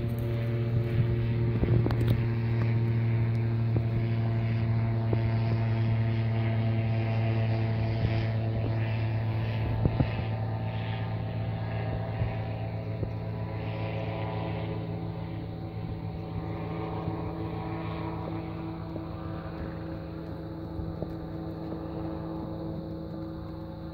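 A motor engine drones steadily at one pitch, with a low hum and a stack of overtones, and fades slowly over the second half.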